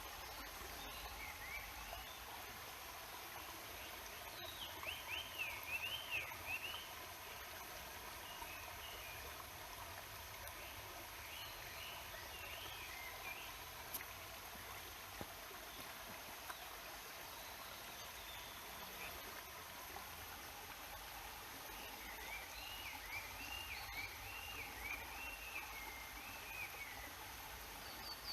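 Stream water flowing steadily, with a songbird singing quick warbling phrases over it three times: about four seconds in, around the middle, and again near the end.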